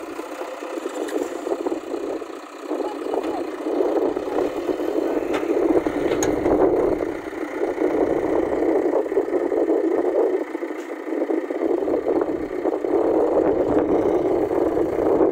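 A vehicle engine running and revving in repeated surges, easing off briefly about two and a half, seven and a half and eleven seconds in.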